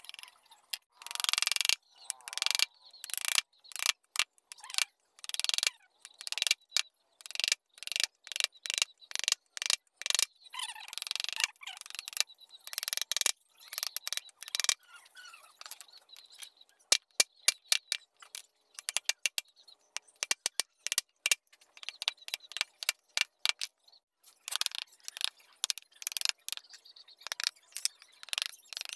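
Steel wood chisel, pushed by hand, shaving and scraping across a wooden flower carving: a quick run of short cutting strokes, some longer shaving strokes near the start, and a cluster of sharp ticks as the edge catches the wood around the middle.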